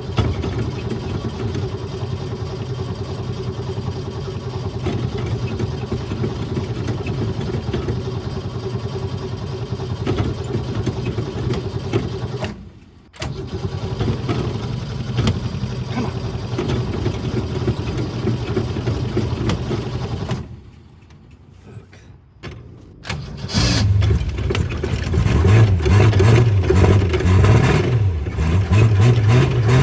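An engine being started with difficulty: it turns over steadily for long stretches, stops briefly twice, then runs louder from about three quarters of the way in, its speed rising and falling unevenly. The long effort and the uneven running mark a hard start.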